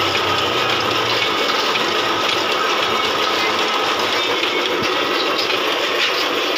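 Rice being roasted in hot sand in an iron wok over a mud stove to puff it: a steady dense hiss with fine crackling as the sand and grains are stirred and the rice puffs.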